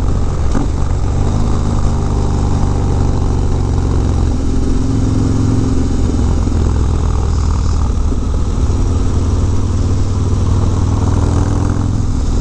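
Harley-Davidson Dyna's V-twin engine running through a Bassani Road Rage exhaust while riding, its pitch shifting a few times with throttle changes, with wind rushing over the handlebar-mounted microphone.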